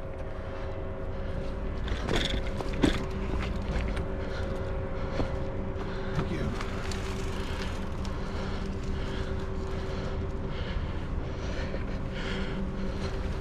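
Mountain bike rolling over a dirt trail, heard from a handlebar-mounted camera: a steady low rumble of tyres and wind with a constant hum underneath. A few sharp knocks and rattles come about two to three seconds in as the bike goes over bumps.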